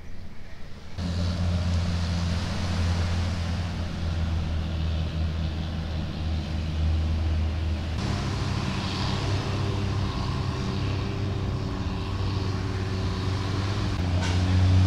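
Motorboat engine running with a steady low drone, its pitch shifting about eight seconds in and again near the end.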